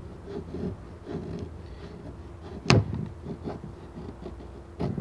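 Battle Horse Knives Tree Frog's Scandi-grind blade carving a feather stick: a run of short scraping strokes as curls are shaved off the wood, with one sharp crack about two and a half seconds in and another near the end.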